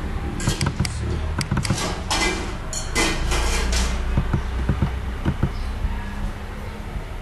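Computer mouse clicking, with other small knocks and handling noises scattered irregularly, over a steady low hum.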